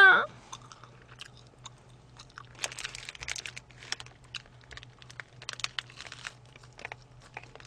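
Paper burger wrapper crinkling as a chicken burger is picked up, bitten and chewed. Scattered soft crackles and crunches begin about two and a half seconds in.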